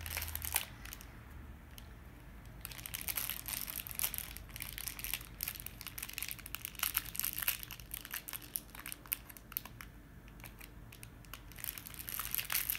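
A crinkly plastic foil wrapper crackling and rustling as it is cut with scissors and then pulled and picked open by hand. The crackling comes in dense bursts, quieter for a second or two early on and again shortly before the end.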